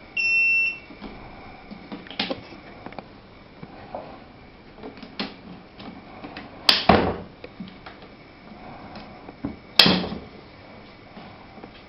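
A jump starter gives one short electronic beep. Then come scattered light clicks and two sharp plastic-and-metal clacks, one about six and a half seconds in and one about ten seconds in, as the unit and its clamps are handled.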